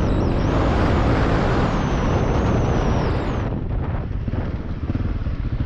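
Husqvarna 701 Enduro's single-cylinder four-stroke engine pulling hard over rough dirt, with a dense rushing noise. About three and a half seconds in the sound drops suddenly as the throttle is closed, leaving a lower, rougher engine note.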